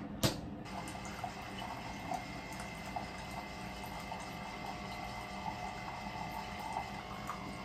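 Single-serve coffee maker brewing into a mug: a sharp click just after the start, then the steady sound of its pump pushing water through, with small gurgles and crackles; it is loud enough to be called "so loud".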